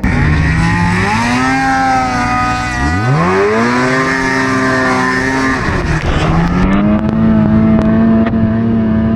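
Polaris RMK 700 snowmobile's two-stroke engine under throttle, revving up three times. Each time the pitch climbs and then holds steady, with a short dip between: near the start, sharply about three seconds in, and again about six seconds in.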